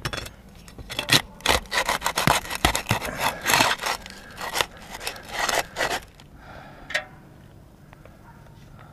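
A flat bar scraping and rubbing against asphalt roof shingles around a PVC conduit pipe in a quick run of strokes that stops about six seconds in, followed by a single sharp click.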